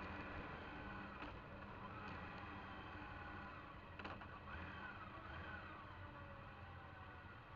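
Motorcycle engine running steadily while riding, with road noise, heard from a camera mounted on the bike. A click about four seconds in and a faint rising and falling whine just after it.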